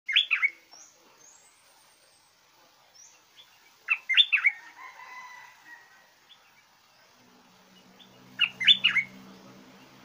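Stripe-throated bulbul singing: three short bursts of three or four quick, loud whistled notes, about four seconds apart.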